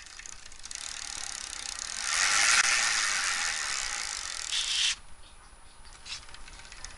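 BMX cassette hub freewheeling as the rear wheel spins: a fast, dense ratcheting buzz of pawl clicks that builds over the first couple of seconds, slowly fades, then stops abruptly about five seconds in.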